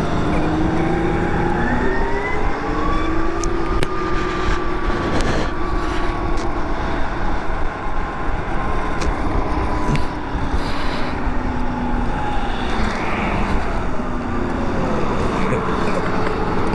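2012 Zero DS electric motorcycle under way: the motor's whine climbs in pitch as it gathers speed over the first few seconds, holds steady while cruising, then drops as the bike slows near the end and starts to rise again. Steady tyre and road noise runs underneath.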